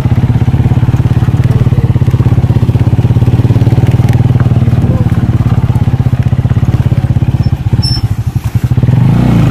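Motorcycle engine running steadily under way, with a fast, even firing pulse; near the end it drops and stutters for about a second, then picks up again.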